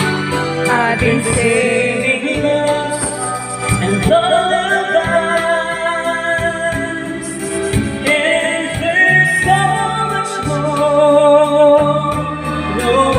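A man singing into a microphone, his voice amplified through a speaker over an instrumental backing track.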